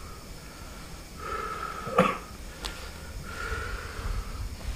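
A person's drawn-out breath or vocal sounds: two steady high tones about a second each, with a sharp snap, like fingers snapped, about two seconds in.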